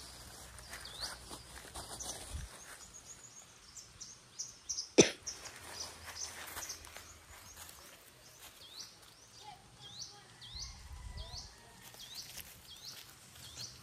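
A bird calling over and over in short, high, rising chirps, about one or two a second, over quiet outdoor ambience. One sharp click about five seconds in.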